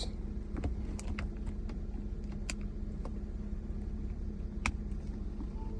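Scattered small plastic clicks and taps of a USB cable being plugged into a cigarette-lighter USB adapter and a phone being handled, over the car's steady low hum.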